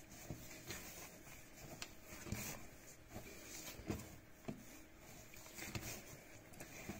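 Hands kneading a large ball of firm bread dough on a countertop: faint, irregular soft pats and thuds as the dough is pressed and pushed, while the salt is being worked into it.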